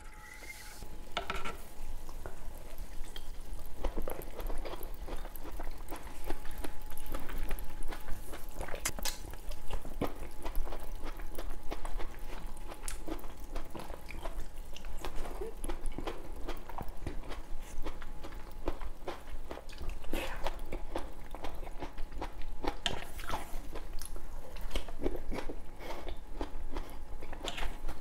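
Close-miked eating of tomato slices soaked in Sprite Zero: crackling fizz from the soda poured over them, then chopsticks on the steel tray and juicy biting and chewing, with many small clicks throughout.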